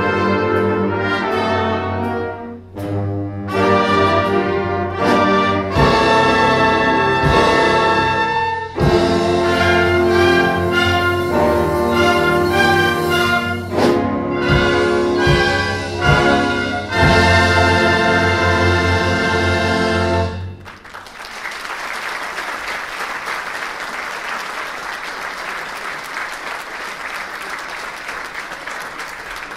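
Concert wind band, brass loudest over clarinets, saxophones and drums, playing the closing bars of a piece: short stabbed chords, then longer ones, ending on a long held final chord that cuts off about twenty seconds in. The audience then applauds steadily.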